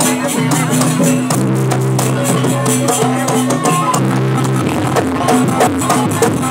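Live jaranan gamelan music, a fast sampak piece played by the troupe's ensemble: drums and rattling percussion over steady low sustained tones.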